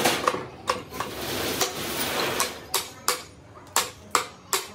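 Hammer blows on metal, each a sharp ringing strike, coming unevenly at first and then settling into a steady rhythm of about two to three blows a second from about halfway in.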